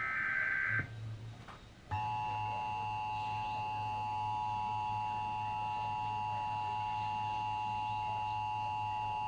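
Emergency Alert System transmission announcing a flash flood warning. It opens with the tail of the SAME digital header, a short screeching data burst under a second long. About two seconds in, the long steady EAS attention tone starts and holds, over a low hum.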